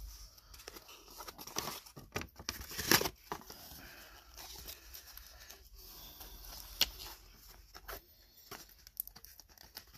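Clear plastic sleeve and tape crinkling and tearing as fingers pick at a taped banknote holder in a cardboard mailer. Irregular rustling with scattered sharp snaps, the loudest about three seconds in and another near seven seconds.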